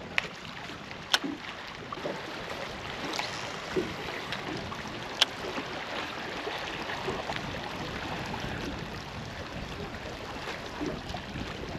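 Water swishing and lapping against a small drifting boat's hull, with a few sharp knocks on the boat, the loudest about five seconds in.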